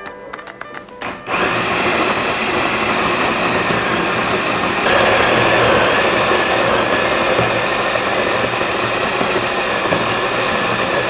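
Hario V60 electric coffee grinder starting up about a second in and grinding beans at its finest espresso setting, a steady whirring grind that gets a little louder about five seconds in. A few faint clicks come just before the motor starts.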